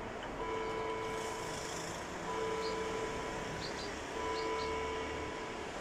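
A steady tone held about a second and a half, stopping briefly and coming back at even spacing, about three times, with a few short high chirps between.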